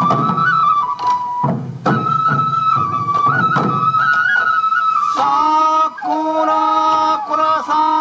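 Sansa odori festival music: a Japanese transverse bamboo flute (fue) plays a single melody line over occasional struck drum beats. About five seconds in, it gives way to several held notes sounding together in step.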